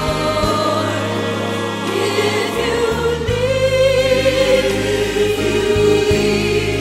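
A choir singing a hymn with musical backing, holding long notes.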